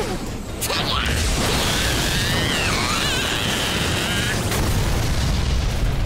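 Cartoon battle sound effects: a sharp crack about half a second in, then a wavering high whine of an energy beam over a deep explosion rumble that swells in the second half.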